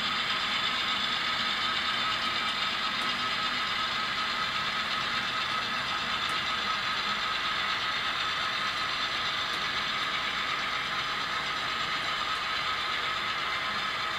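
HO scale model train running: a steady whir from the model diesel locomotives' electric motors and gearing, with the cars' wheels rolling on the rails.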